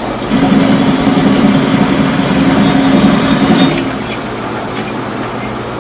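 A loud, steady engine-like running noise lasting about three and a half seconds, then falling away to a lower steady hum.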